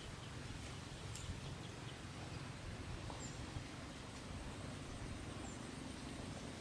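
Quiet rural outdoor ambience: a steady low background noise with a few faint, short bird chirps.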